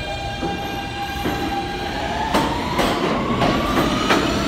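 Subway train pulling out of the station, its traction motors whining and rising steadily in pitch as it speeds up. From about halfway in, the wheels clack sharply several times over the rail joints.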